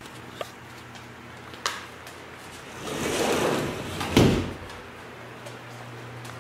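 A door sliding along its track with a rushing rumble and shutting with a heavy thud about four seconds in, after a couple of light clicks, over a steady low hum.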